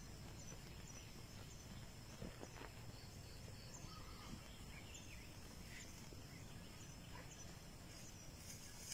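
Faint outdoor ambience: a steady high drone and short high chirps repeating roughly twice a second, over a low rumble.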